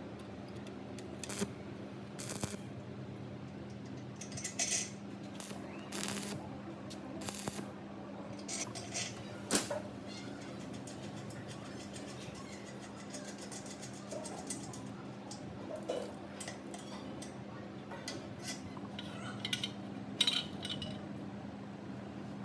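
Scattered metallic clinks and taps of metal parts and tools being handled, irregular and a few seconds apart, over a steady low hum.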